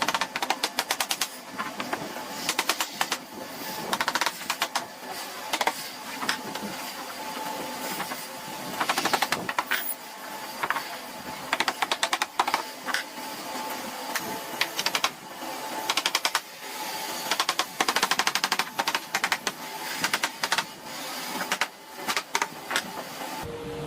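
Bursts of rapid, sharp mechanical clicks, many a second, coming again and again with short pauses between them.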